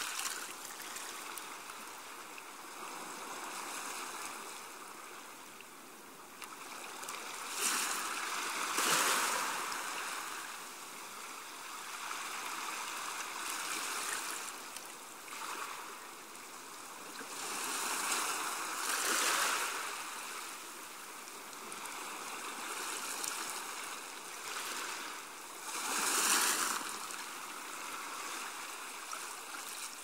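Gentle surf on a sandy beach: small waves washing up the shore in a steady hiss that swells and fades every few seconds, the biggest surges about eight, eighteen and twenty-six seconds in.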